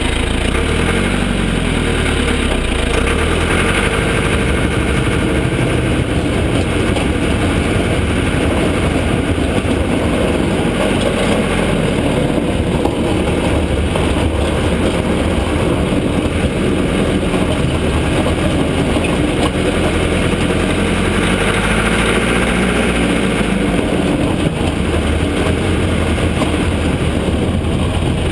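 Cat 416 backhoe loader's diesel engine running steadily while working, its revs rising and falling a few times.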